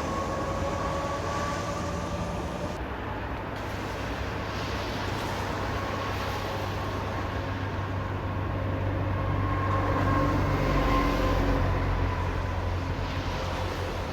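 Steady road noise and low rumble of traffic, swelling about ten seconds in as a vehicle passes close. A faint wavering siren tone comes and goes over it.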